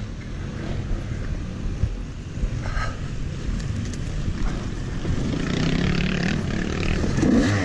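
Yamaha YZ250X two-stroke single-cylinder dirt bike engine running at low revs as the bike rolls along a downhill trail, picking up revs near the end.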